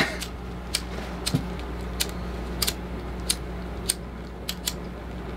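Sharp metal clicks and taps, roughly one every half second to second, as utensils work at raw burger patties on the metal top of a space heater. A steady low hum sits underneath.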